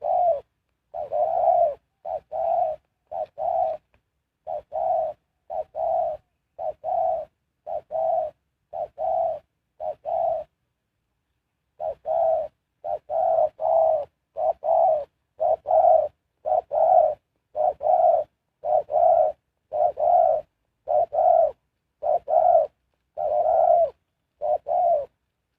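Spotted dove cooing: a long run of low coos, about one a second, with a pause of about a second and a half near the middle.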